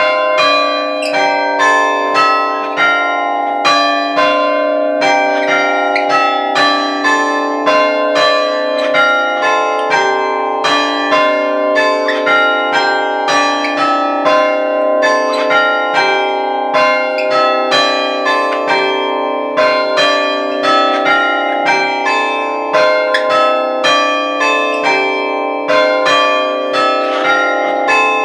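Six church bells chimed on an Ellacombe apparatus, hammers striking the stationary bells one after another in an even, unbroken run of changes, each stroke ringing on under the next.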